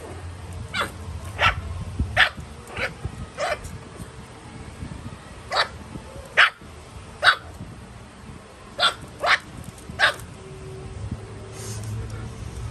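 Shih Tzu puppy barking in short, high yaps, about eleven in scattered clusters, at an unfamiliar new toy it is wary of.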